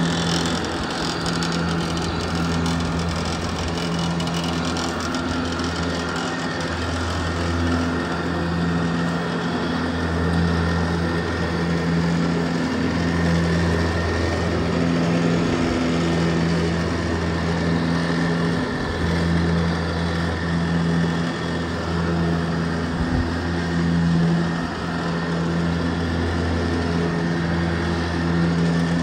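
Zero-turn ride-on mower's engine running steadily while it mows, a constant hum with a slight swell and dip in loudness as the mower moves and turns.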